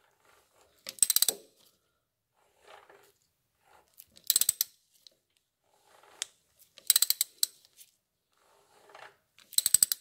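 A hand ratchet clicks in four short rapid bursts, about every two and a half to three seconds, with fainter mechanical sounds between. Each burst is the wrench being swung back between pulls that turn the Yamaha Drag Star 1100's crankshaft by hand toward top dead centre.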